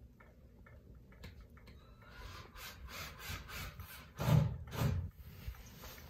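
Hampton Bay Littleton ceiling fan, which has a broken blade, spinning with faint ticking that turns into a rhythmic rubbing about three times a second, with two louder rubs about four and five seconds in.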